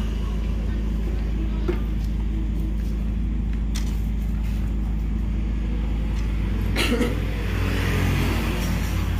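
A steady low, engine-like rumble runs throughout. Over it come a few short knocks and clicks from the loudspeaker cabinet being handled, the loudest about seven seconds in.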